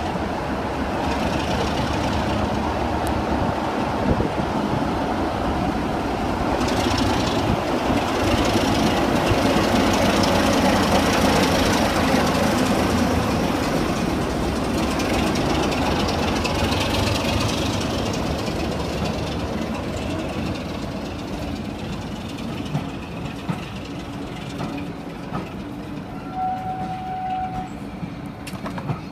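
Class 33 diesel locomotive D6515 running past slowly, its Sulzer engine drone building to a peak and then fading away as it moves off. A short high steady tone sounds near the end.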